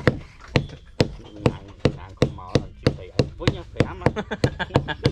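Kitchen knife chopping green stalks on a wooden plank: a run of sharp, regular chops that speeds up from about two to about four a second.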